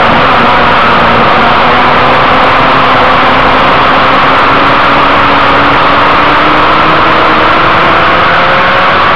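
Inline-four sport bike engine running at high revs, heard from onboard under heavy wind rush. Its pitch sags a little, then climbs steadily over the last few seconds as the bike accelerates.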